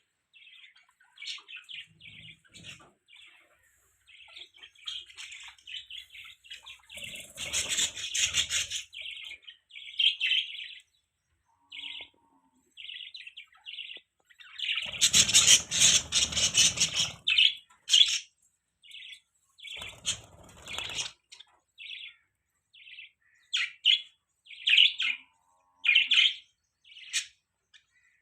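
Budgerigars chirping and chattering in quick runs of short, high chirps, with two louder, busier stretches about eight seconds in and again about fifteen seconds in.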